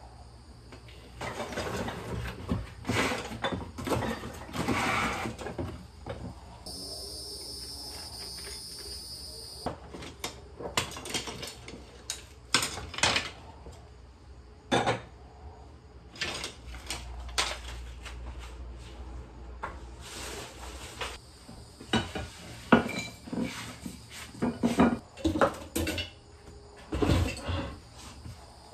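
Ceramic dishes and plates clinking and clattering as they are handled, stacked and set down in a cardboard box, with irregular knocks throughout.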